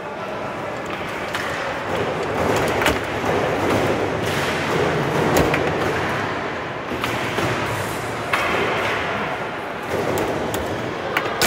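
Foosball play: a handful of sharp knocks at irregular intervals as the ball is struck by the rod figures and hits the table, over a steady noisy background.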